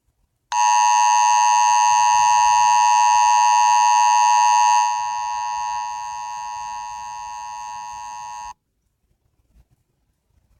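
Emergency Alert System attention signal, the two-tone 853 and 960 Hz "combined frequency" tone, played by an EAS simulator app through a phone speaker. It is one loud, steady, unbroken tone about eight seconds long. It drops in level about halfway through and again a second later, then cuts off abruptly.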